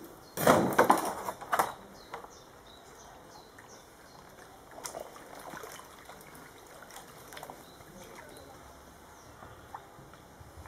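A thin plywood sheet laid flat onto wet plywood in a shallow water bath, with a splash of water about half a second in that lasts about a second. Then faint drips and small knocks as the sheets are pressed down, and a brick set down on them near the end.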